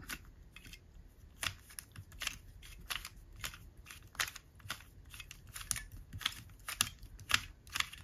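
Plastic 3x3 Rubik's cube being turned one-handed through an algorithm: a quick series of sharp clicks from the layers, a little over two a second, each click a face turn snapping into place.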